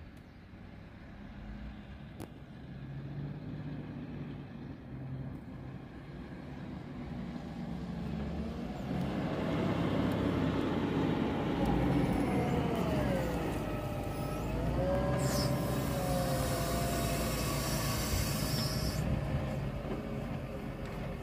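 Wheel loader's diesel engine working louder as it drives up and lifts its bucket, with a hydraulic whine that rises and falls in pitch midway, over the low idle of the truck's engine. Near the end comes a few seconds of rushing hiss as wood chips pour from the bucket into the hooklift container.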